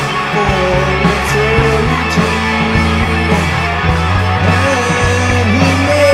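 Rock band playing a demo track: bass notes that change in steps, drums, and a wavering electric-guitar melody line.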